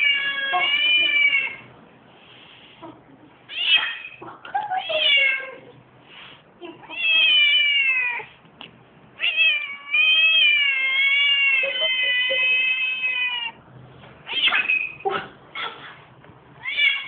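Domestic cats yowling in a fight standoff. There are long, drawn-out, wavering caterwauls, the longest held for about four seconds in the middle, with short sharp cries between them.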